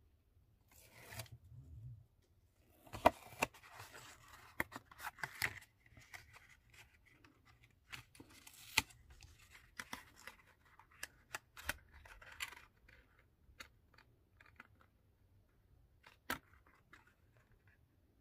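Cardstock being folded and pressed into a small box by hand: crinkling rustles and sharp paper clicks and snaps, coming in irregular clusters with short pauses.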